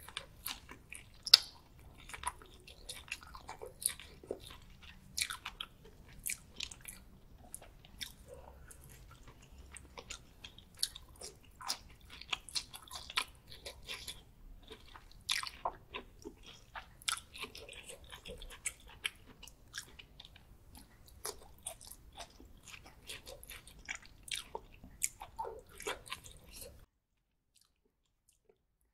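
Close-miked biting and chewing of shell-on garlic butter prawns, with many sharp, crunchy clicks and wet mouth sounds. The sound stops abruptly near the end.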